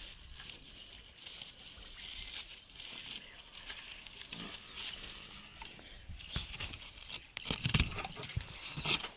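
Rope rustling and scraping as a hand knots it around a wooden post, with a few dull knocks near the end.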